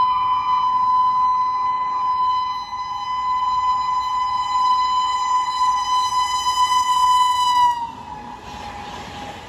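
Indian Railways locomotive air horn held on one long steady note. Near the end its pitch drops suddenly as the train passes, and it fades under a rushing hiss.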